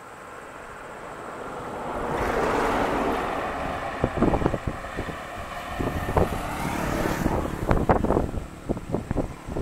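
Road traffic passing, a vehicle's engine and tyre noise swelling to a peak a couple of seconds in, with wind buffeting the microphone in irregular gusts from about four seconds on.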